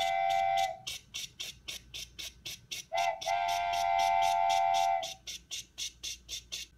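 Steam locomotive sound effect: rapid, even chuffing, with a steam whistle blowing at the start and again, longer, about three seconds in.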